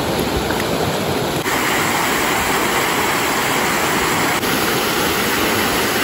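Rushing water of a rocky mountain stream and small waterfall, a steady loud rush. About a second and a half in, the sound changes abruptly and becomes higher and hissier.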